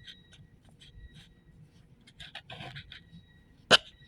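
Scratchy rustling and scraping of potting soil being worked by hand around a cutting in a pot, with a few small clicks and one sharp knock about three and a half seconds in.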